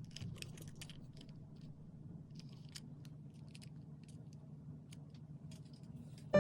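Faint, irregular small clicks and rustles of handling over a low steady hum.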